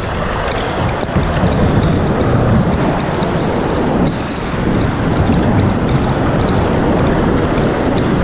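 Rushing water of a flooded river's rapids around a kayak, a loud steady wash with a heavy low rumble and many small sharp ticks of splashes and drops throughout.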